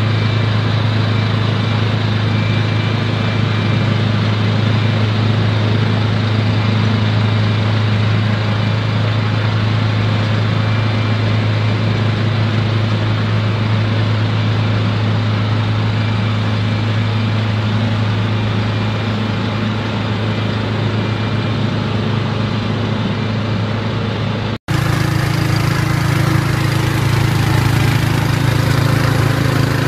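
Machinery running steadily with a loud low hum. About 25 s in the sound cuts out for an instant, then resumes with a somewhat deeper, changed hum.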